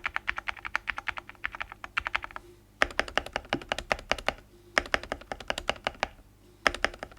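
Typing on a Rebel 60 mechanical keyboard with lubed TKC Tangerine V2 linear switches, PBT keycaps, a polycarbonate plate and tempest tape mod. Rapid keystrokes come in four bursts with short pauses between them, about a second apart.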